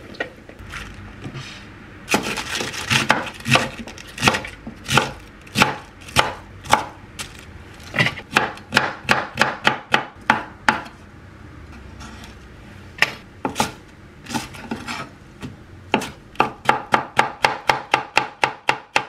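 Chef's knife chopping vegetables on a wooden cutting board, slicing a green onion and then a green chili: a series of knife strikes on the board, uneven at first, with a short pause about halfway, then a fast even run of about five chops a second near the end.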